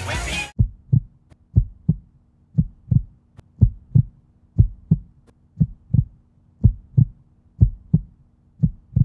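Heartbeat sound effect: low double thumps, one lub-dub pair about every second, starting right after the music cuts off about half a second in. A faint steady hum sits underneath.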